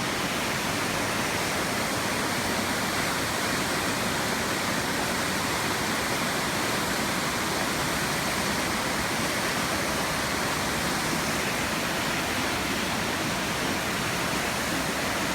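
A waterfall's steady, dense rush of falling water, unbroken throughout.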